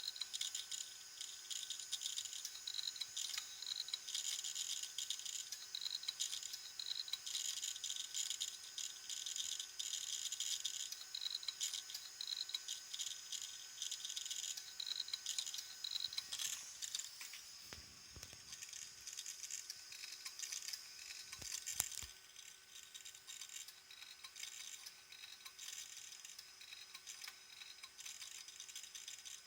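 Opened hard disk drive running with a gritty, rapid grinding rattle from inside, over a steady low hum. The grinding is the sign of a fairly severe physical failure of the drive. The rattling eases about two thirds of the way in after a couple of knocks.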